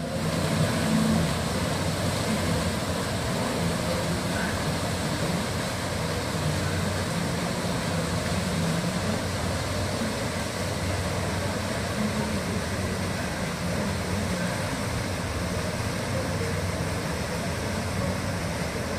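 The sternwheel steamboat Natchez running as it pulls away: a steady low hum over a constant wash of noise from its machinery and its paddlewheel churning the water.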